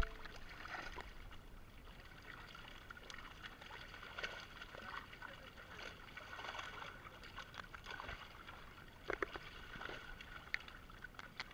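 Faint splashing of carp thrashing in a net in shallow water, with scattered sharper splashes, a few of them close together near the end, and one sharp knock at the very start.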